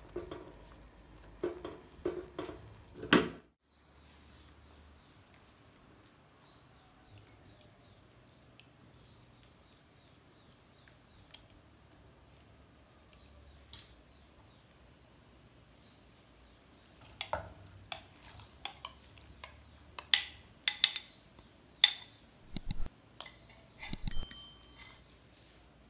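A spatula stirring and scraping thick milk custard in a stainless steel saucepan, with a few knocks in the first few seconds. After a long quiet stretch comes a rapid run of sharp clinks and taps against the steel pan as chopped fruit goes in and is stirred.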